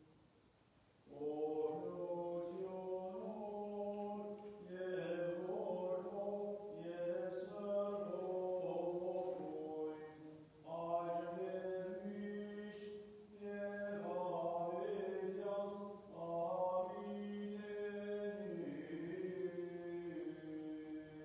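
Armenian liturgical chant: a slow sung melody in phrases over a steady low held note. It starts about a second in and breaks briefly twice along the way.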